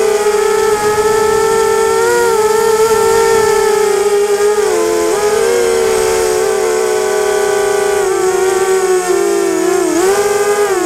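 Four Emax MT1806 brushless motors with Gemfan 5030 propellers on a ZMR250 quadcopter, a steady high whine whose pitch wavers with throttle and dips and rises a few times near the end, heard through the camera mounted on the quad.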